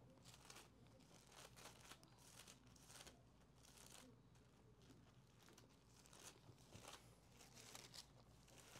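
Faint, irregular rustling of Bible pages being leafed through.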